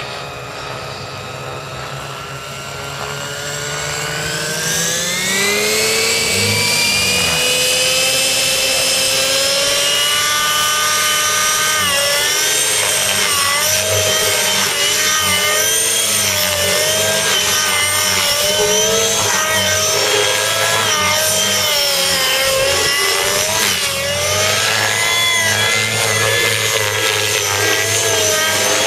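Gaui NX4 radio-controlled helicopter's Gaui 37SZH nitro engine with muffler, spooling up with a rising whine over the first several seconds. It then holds a steady high pitch that dips and recovers again and again as the rotor is loaded in hard aerobatic flight.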